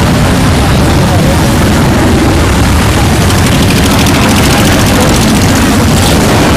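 Loud, steady rumble of many motorcycle engines running together.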